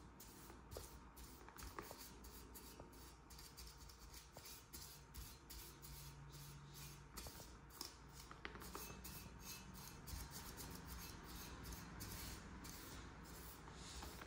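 Faint, repeated scratchy swishes of a bristle paintbrush dabbing and stroking paint onto a hard surface.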